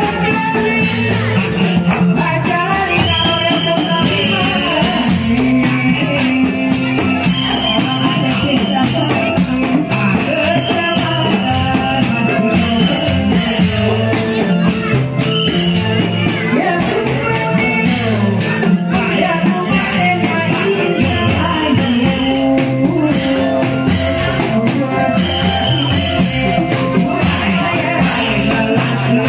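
Loud, lively music accompanying a reog masked street dance: a steady drum beat, a high melody line that comes back every few seconds, and some singing.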